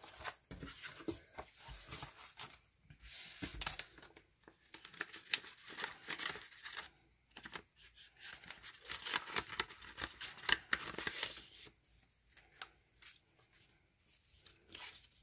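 Paper envelope and plastic packaging crinkling and tearing as a small mailed package is unwrapped by hand, in stretches of a few seconds with short pauses between.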